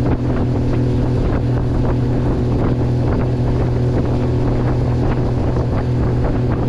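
A boat's outboard motor running at a steady pitch, with wind buffeting the microphone.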